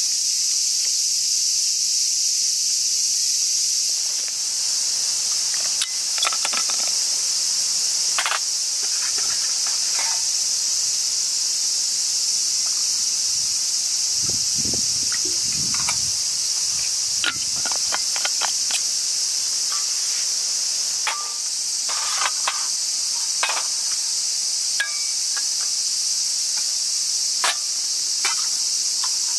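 A steady, high-pitched chorus of summer insects, the loudest sound throughout. Over it come scattered light metallic clinks of small metal pots, lids and an alcohol stove being handled, and a short splash of water poured from a vacuum bottle into a pot about halfway through.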